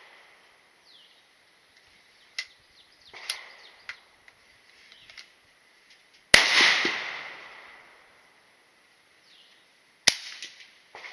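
Two gunshots about four seconds apart, the first the loudest with a long fading echo, and fainter pops and clicks between them.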